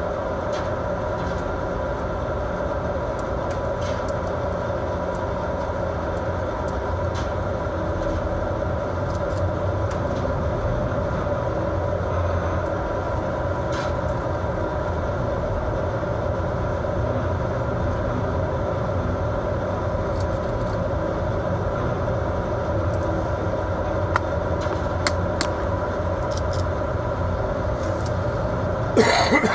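Steady drone of a fishing vessel's engines and machinery, a low hum under the rush of wind and rough sea, with a few faint clicks. A short loud burst of noise comes near the end.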